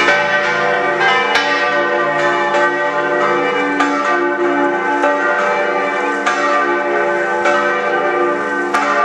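Church bells ringing: several bells struck again and again, their tones ringing on and overlapping.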